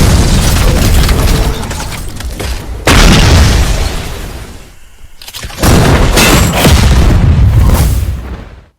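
Explosion-like booming sound effect at full volume: a boom already running decays, a fresh one hits suddenly about three seconds in, another about halfway through, and the sound cuts off abruptly near the end.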